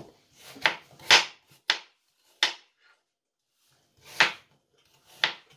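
Kitchen knife slicing through a peeled apple and striking a plastic cutting board: six sharp cuts, the first four about half a second apart, then a pause of about a second and a half before the last two.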